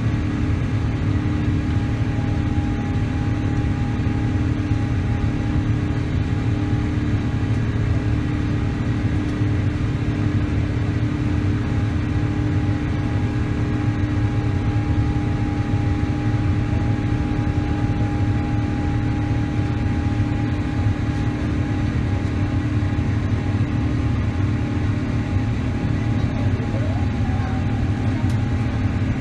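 Cabin noise of an Airbus A350-900 in its climb after takeoff, heard beside the wing: the Rolls-Royce Trent XWB turbofans run at climb thrust as a steady roar with a deep rumble and a few held tones over it.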